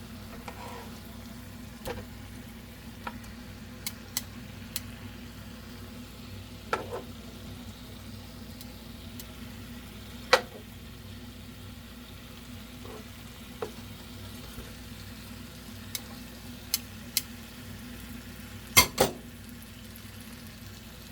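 Marinated chicken pieces sizzling as they cook, over a steady low hum. Sharp clicks and knocks come now and then, the loudest about ten seconds in and two close together near the end.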